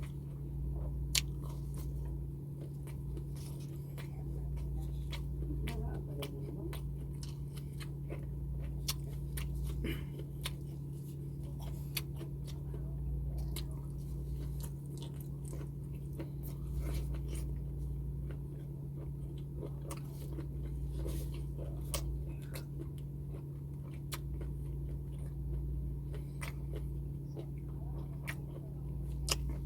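A person chewing and biting food close to the microphone, with crisp crunches and wet mouth clicks scattered throughout, over a steady low hum.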